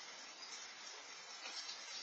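Steady hiss of light rain, picked up through a Nest security camera's microphone, with a few faint ticks near the end.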